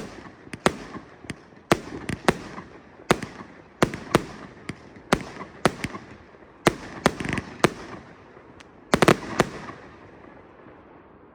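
Fireworks going off: a rapid, irregular series of sharp bangs, about two a second, each with a trailing echo. The loudest is a close pair near the end, after which the bangs stop and only a fading hiss is left.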